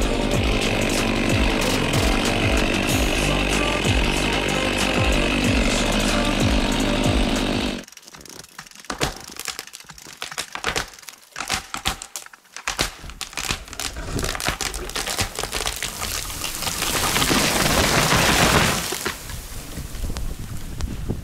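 Chainsaw running steadily while finishing the felling cut, then cutting off suddenly about eight seconds in. A run of sharp cracks and clicks follows, then a swelling rush and crash as the felled tree comes down through snow-laden branches, loudest a few seconds before the end.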